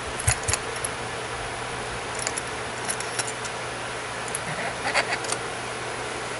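Small metal clicks and taps from a Master Lock 150 padlock and lock-picking tools being handled, in a few short clusters, over a steady background hiss.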